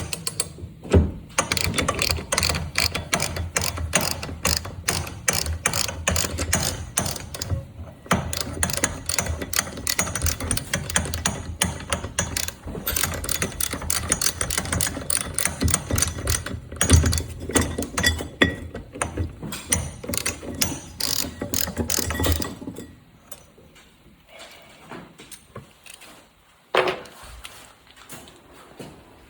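Socket ratchet wrench clicking rapidly and steadily as bolts are worked out of an ATV brake rotor. The clicking stops about three quarters of the way through, and a few light knocks follow.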